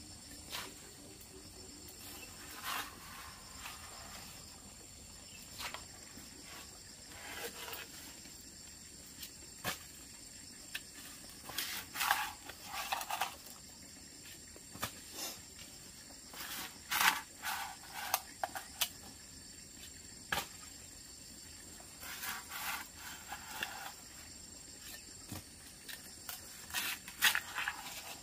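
Steady high insect trilling, with irregular clusters of short knocks and scrapes, loudest about midway and near the end.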